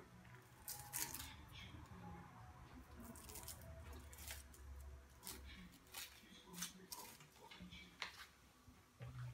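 Faint, scattered crackles and clicks of a knife peeling and trimming an onion.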